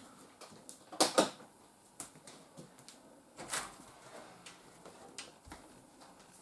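Handling noises in a small room: two sharp knocks close together about a second in, then scattered faint clicks and a softer rustle.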